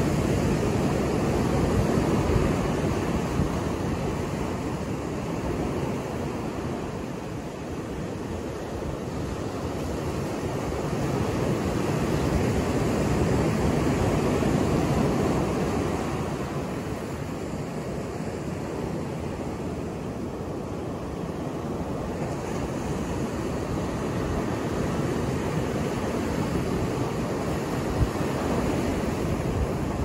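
Ocean surf: waves breaking and washing up a sandy beach, a steady rushing that swells and ebbs slowly, loudest at the start and again around halfway.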